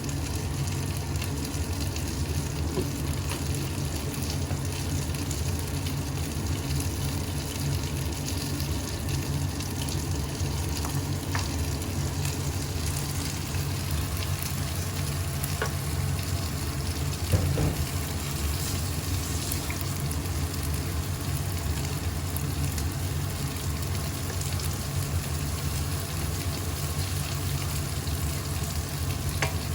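Food frying steadily in a pan, with a few light clicks from stirring and a steady low hum underneath.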